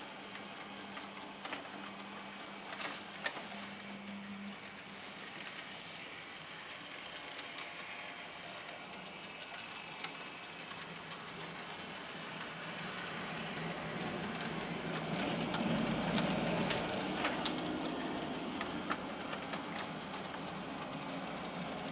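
N-scale model locomotive and wagon running slowly around the track: a faint whir of the small motor and wheels with scattered light clicks, growing louder in the second half.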